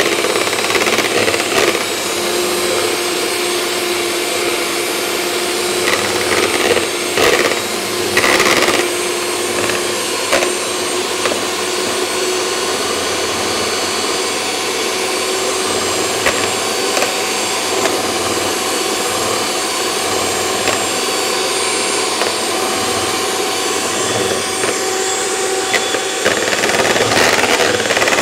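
Kenwood electric hand mixer running steadily, its twin beaters whisking egg whites and sugar in a bowl. The beaters clatter louder a few times around six to nine seconds in.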